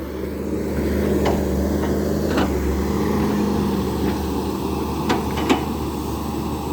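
Hydraulic excavator's diesel engine running steadily under working load while it trims a slope, with a few sharp clanks, two close together about five seconds in.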